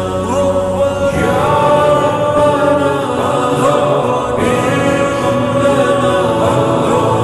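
A nasheed played slowed down with added reverb: a singing voice holding long notes that glide between pitches.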